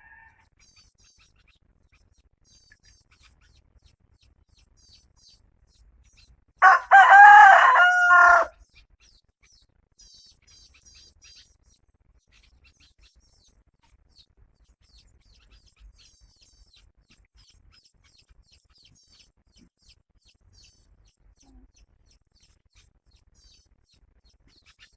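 A rooster crows once, a single crow of about two seconds some seven seconds in. Faint high chirps of small birds sound in the background before and after.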